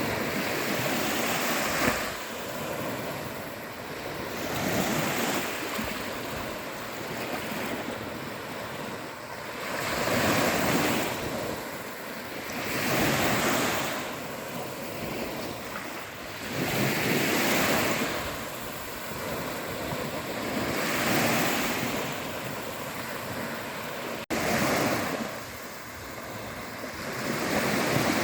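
Sea waves breaking and washing on a shore, the surf rising and falling in repeated surges every few seconds. A brief sudden gap in the sound cuts in near the end.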